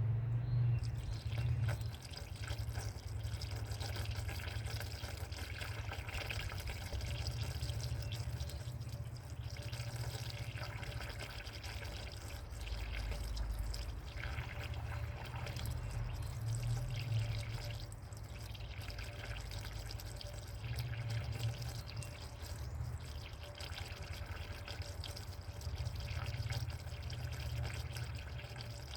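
Water poured from a jug into a car's cooling system, splashing and gurgling steadily as it goes in, over a steady low hum.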